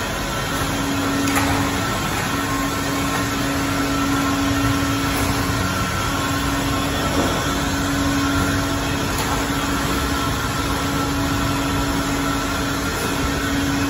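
Automatic carousel screen printing press running: a steady mechanical hum with a held low tone that breaks off briefly a few times, over a broad machine noise.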